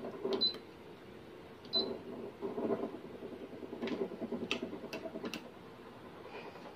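Asahi TF-012 tower fan running with a steady whir and faint hum while it swings on its continuous 360° oscillation, freshly repaired and turning again. A few short sharp clicks come through, two near the start and a quick run of four a few seconds later.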